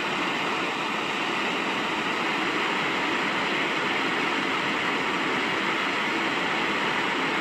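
Steady radio static: an even hiss with no voice, as the weather radio broadcast's signal breaks up in the middle of the warning message.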